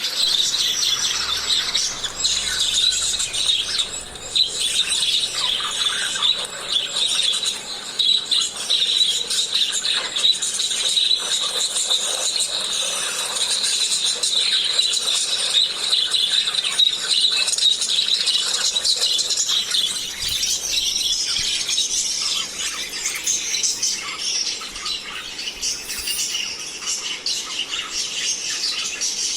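A group of lovebirds chirping and chattering without pause, many high-pitched calls overlapping.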